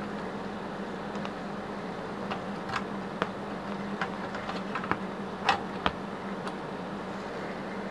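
Steady hum of a switched-on inverter welding machine, broken by a few short sharp clicks, the loudest about five and a half seconds in.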